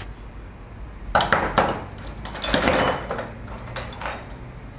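Metal hand tools clinking and scraping as a spark plug socket and wrench are worked and handled. There are several sharp clicks, then a short stretch of scraping with a faint metallic ring about two and a half seconds in.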